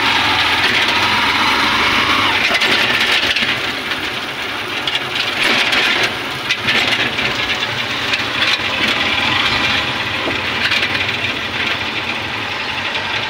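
Engine of a Honda motorcycle-and-sidecar tricycle running as it rides along, heard from inside the sidecar with road noise.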